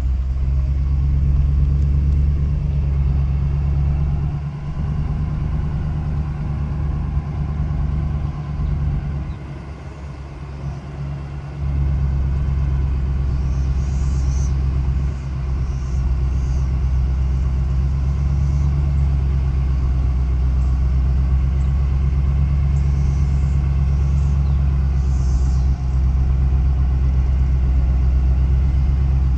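Pickup truck's engine running at low speed, heard from inside the cab with the window open: a steady low rumble that eases briefly about ten seconds in. A few faint high-pitched chirps come through in the middle and near the end.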